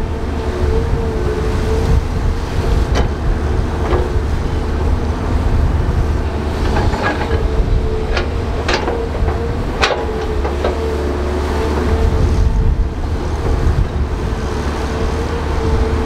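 Crawler bulldozer working: a loud, steady diesel rumble with a steady whine, and several sharp metallic clanks between about 3 and 11 seconds in.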